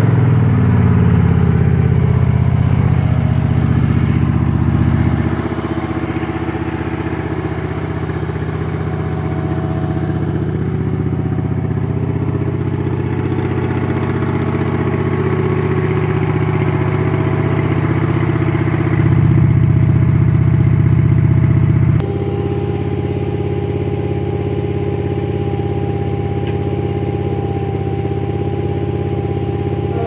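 The 24-horsepower Honda V-twin engine of a Wacker Neuson RD12 vibratory road roller, running steadily. Its sound changes abruptly about five seconds in and again around twenty-two seconds in.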